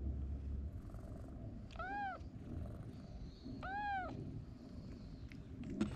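A stray cat meowing twice, about two seconds apart, each meow rising and then falling in pitch.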